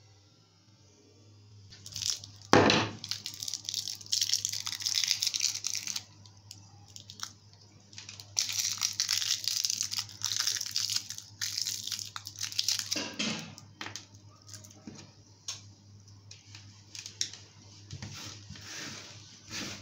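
Foil candy wrapper being crinkled and torn open by hand around a crushed hard candy, in irregular bursts starting about two seconds in, with one sharp knock shortly after they begin.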